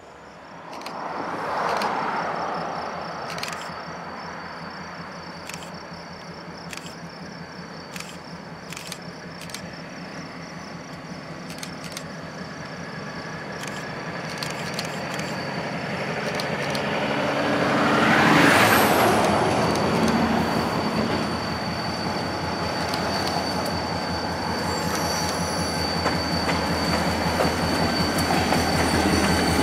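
Canadian Pacific diesel locomotives leading a track-testing train as it approaches, the engine rumble building steadily. From about halfway a high steady squeal from the train's wheels joins and grows louder. A brief loud rushing swell comes about two-thirds of the way through.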